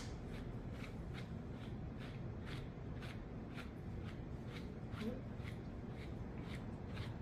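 Wire-pin slicker brush raking through a dog's thick curly coat in quick repeated strokes, about two to three a second, each a short scratchy brush.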